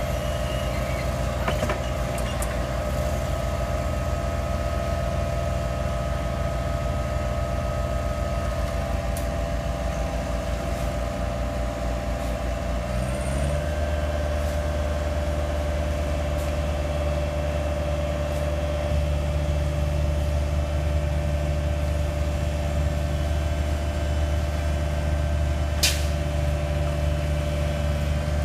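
Asphalt paver's diesel engine running steadily, with a steady whine over its low drone; about halfway through the drone changes note as the engine speed shifts.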